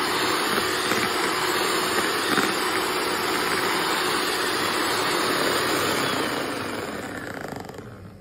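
Kenwood electric hand mixer running steadily, its twin beaters whipping a thick cream mixture in a plastic bowl. The whirring dies away over the last two seconds.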